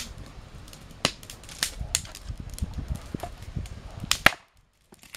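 Wood fire of boards and kindling burning, crackling with sharp, irregular pops over a low rumble; the sound drops out briefly near the end.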